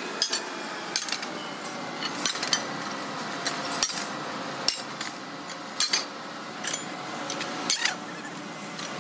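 Short cut lengths of old steel railway rail clanking against each other as they are handled and dropped onto the pile: about a dozen sharp metallic clanks at irregular intervals, each with a brief ring, over steady background noise.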